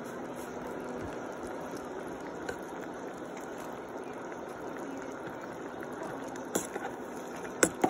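Pot of upo (bottle gourd) and pork in broth simmering with a steady bubbling hiss. Near the end come a few sharp clicks against the pan.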